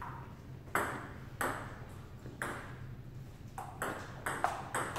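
Table tennis rally: the celluloid-type ping-pong ball clicking sharply off paddles and the table, about eight hits at uneven spacing, each with a short ringing tail.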